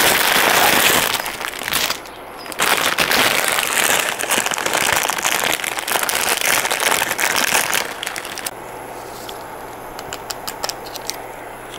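Plastic instant-ramen packet being handled and torn open, crinkling loudly with dense crackle, broken by a short pause about two seconds in. After about eight seconds it dies down to a few scattered small crinkles and clicks.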